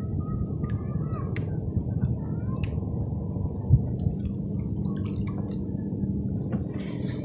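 Sea water lapping against a small wooden outrigger boat's hull, with scattered small clicks and a few faint chirps in the first second and a half. A single sharp knock on the boat comes a little under four seconds in.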